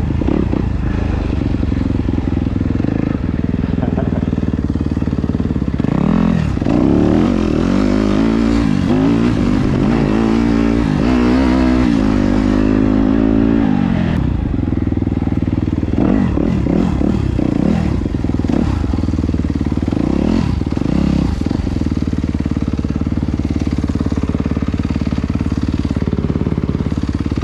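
2017 Yamaha YZ250FX dirt bike's 250cc four-stroke single-cylinder engine running while riding the trail, its pitch rising and falling as the throttle opens and closes, with a long climb in revs in the middle before it drops back.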